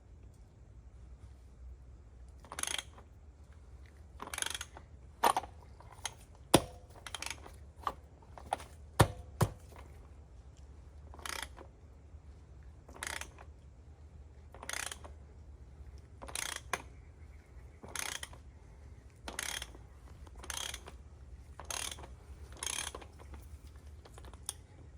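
Ratchet wrench clicking in short runs every second or two, with a few sharper single metal clicks, as the oil filter housing is unscrewed. A faint steady low hum runs underneath.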